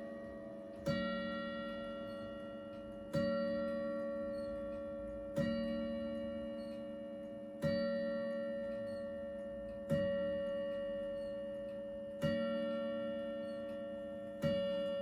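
Grandfather clock with a Hermle movement striking the hour on a chime rod: slow, even strokes of the same deep ringing tone, about one every 2.2 seconds and seven in all, each fading slowly into the next as it counts out ten o'clock.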